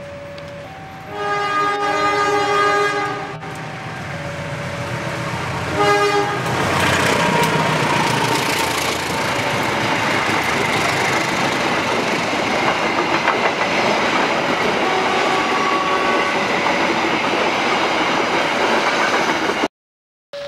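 GE CM20EMP (CC 206) diesel-electric locomotive sounding its horn, a long blast of about two seconds and then a short one. The locomotive and its passenger coaches then pass close by with loud, steady wheel-on-rail noise and the clickety-clack of rail joints, which cuts off suddenly near the end.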